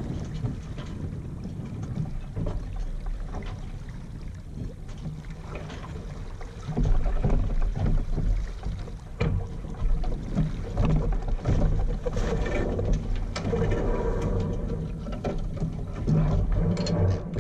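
Wind buffeting the microphone and water moving along the hull of a small sailboat, with scattered knocks and clicks from rigging and crew moving on deck as the boat tacks. The wind rumble grows louder about seven seconds in.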